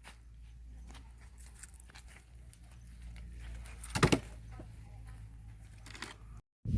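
Quiet background with light handling noise and one short knock about four seconds in, as of firewood being set onto a bonfire stack.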